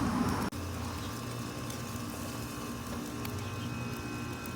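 Steaks sizzling on a hot charcoal grill: a steady hiss with faint scattered crackles, over a low hum.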